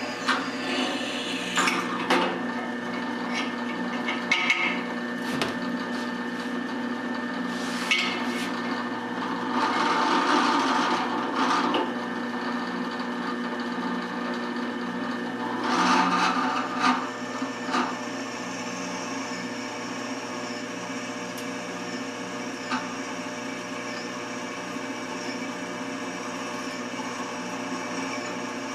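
Drill press running steadily while a twist drill cuts into a metal workpiece, the cutting noise swelling twice near the middle, with scattered sharp clinks in the first half.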